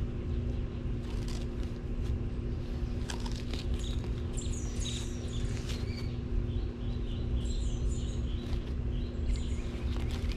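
Sulcata tortoise biting and chewing raw pumpkin, with a few sharp crunches. Birds chirp in quick runs in the middle and later on, and a steady low hum runs underneath.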